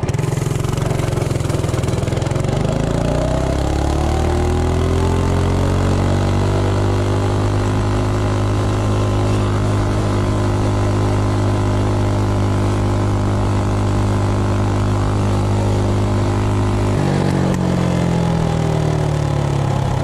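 Coleman CT200U minibike's 196cc single-cylinder engine running through an open header pipe in place of the stock muffler, on a full-throttle top-speed run. It climbs in pitch over the first few seconds, holds steady at top speed, then falls as the throttle is let off near the end.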